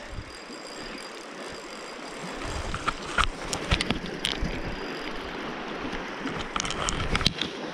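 Shallow, fast river running over stones as a steady rush, with a few scattered clicks partway through and near the end.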